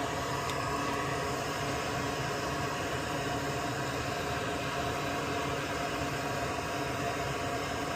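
Soldering fume-extractor fan running with a steady, unchanging hum.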